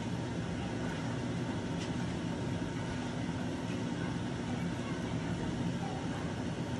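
Chicken and masala sizzling in a frying pan as a spatula stirs it, over a steady low hum.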